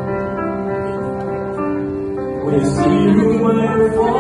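A vocalist singing into a microphone over instrumental accompaniment with guitar, in long held notes. The music swells louder from about halfway in.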